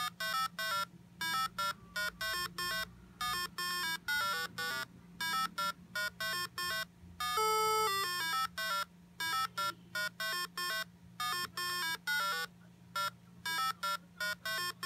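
Melody of short, staccato square-wave beeps from an IchigoJam computer playing a Music Macro Language (MML) tune through a small external speaker, with one longer held note about halfway through. A faint steady hum sits underneath.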